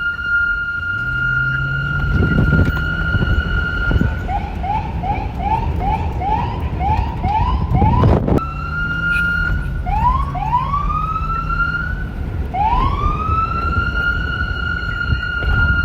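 Electronic police siren. It holds a steady high tone, switches about four seconds in to a fast yelp of repeated rising sweeps, and after a sharp knock about eight seconds in it swings back through slow rising wails to the held tone. A low hum comes and goes beneath it, over a low rumble.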